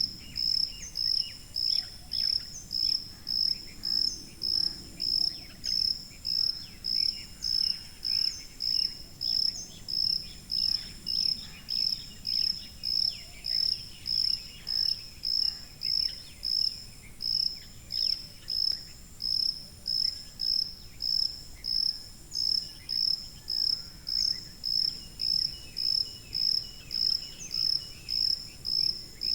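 Cricket chirping in a steady, even rhythm, about two high-pitched chirps a second, with fainter scattered insect chirps behind it.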